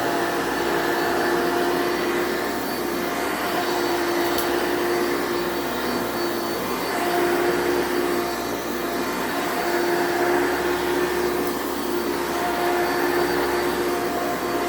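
Hoover Power Max 2 upright vacuum cleaner running steadily, its motor giving an even rushing noise with a constant hum.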